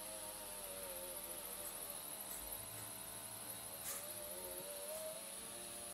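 Steady machine hum with a wavering whine over it and a constant high whistle. There is one short click about four seconds in.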